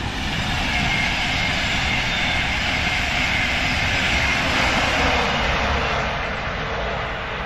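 Gresley A4 steam locomotive 60009 'Union of South Africa' and its train passing at speed: a steady rushing noise that builds to its loudest about five seconds in, then eases off as the train moves away.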